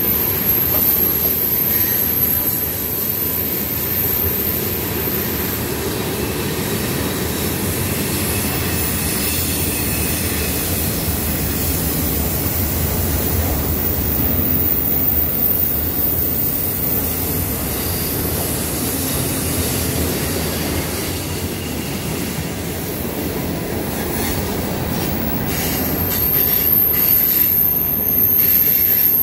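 Freight train cars rolling past on steel rails: a steady, loud rumble of wheels and cars. A thin, high wheel squeal rides over it at the start and again from about three-quarters of the way through, where the sound grows slightly louder.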